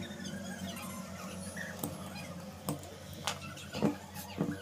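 Small plastic and metal clicks and taps as the carbon brushes and brush holder are pressed into a DeWalt angle grinder's motor housing, about six sharp clicks in the second half, over a steady low hum and faint high chirping.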